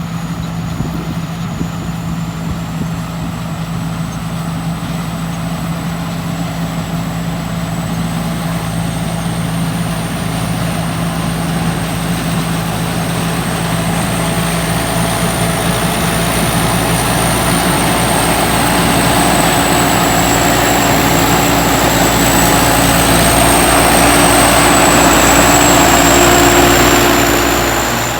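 Small combine harvester's diesel engine running steadily. It gets gradually louder and eases off near the end, with a thin high whine wavering above it.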